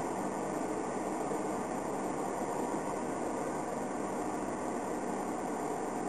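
Homemade ice-cooler air conditioner running on solar power: a steady whir of its fan, even throughout, with a few faint steady tones.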